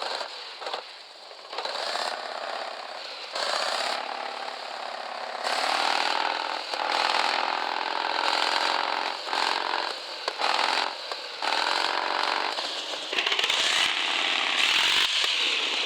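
Radio-controlled 4x4 crawler's electric motor and gearbox whining in repeated surges, the pitch rising and falling as the throttle is worked, with drivetrain rattle. Near the end the whine gives way to a louder, hissy, grinding run.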